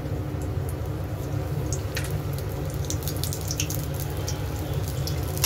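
Bread pakoras sizzling and crackling in hot oil in an iron kadhai. This is their second fry at medium flame, to turn them golden brown. A steady low rumble runs underneath, and the crackles grow denser about halfway through.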